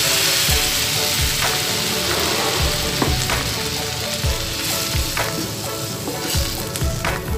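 Sizzling as rice washing water hits a hot non-stick pan of sautéed garlic, onion and shiitake mushrooms. The sizzle fades steadily while a wooden spatula stirs, knocking against the pan about once a second.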